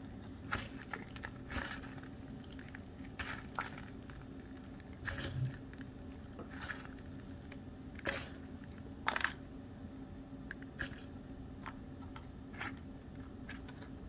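Hands mixing and crumbling dry orchid bark chips with soil and moss, giving scattered light crunches and crackles.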